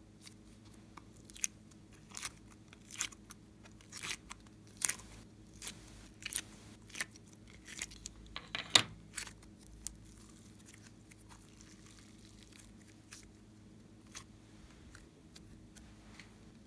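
Rainbow slime being pulled out of a plastic tray, giving a run of small clicks and pops. The sharpest pop comes about nine seconds in; after about ten seconds only a few faint ticks remain.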